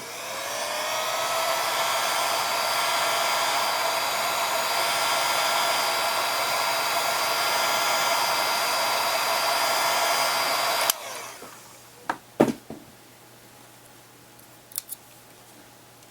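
Handheld hot-air blower switched on to heat a plastic part, its fan whine rising as it spins up, then blowing steadily; it cuts off suddenly about eleven seconds in, followed by a couple of light clicks.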